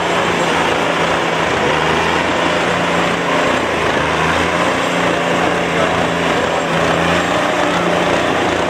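Two tractor diesel engines, a Mahindra Arjun 605 and a John Deere 5310, running hard and steady under heavy load as they pull against each other in a tug-of-war. The engines' note holds even throughout, with no revving up or down.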